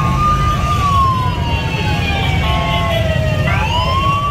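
Police escort siren wailing in a slow rise and fall: it falls over about three seconds, then sweeps back up near the end. A steady low rumble runs underneath.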